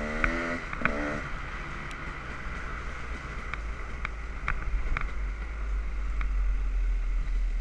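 Dirt bike engine running at low speed, a low rumble mixed with wind buffeting the microphone, growing louder in the second half, with a few light clicks.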